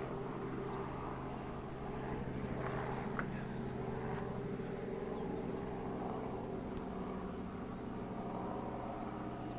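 Small two-bladed tour helicopter flying overhead: a steady drone of engine and rotor.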